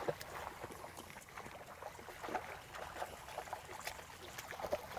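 A hooked snapper splashing and thrashing at the water surface as it is reeled in, a run of small irregular splashes.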